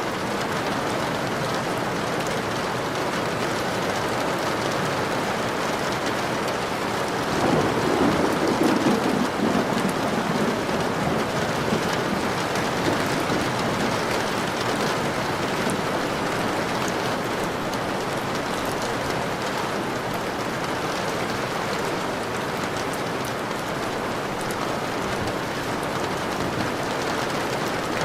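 Steady heavy rainfall, with a roll of thunder that swells about seven and a half seconds in and rumbles away over the next few seconds.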